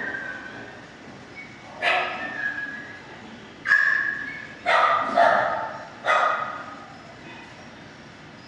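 Dogs barking in a shelter kennel: five sharp, echoing barks between about two and six seconds in, two of them in quick succession near the middle.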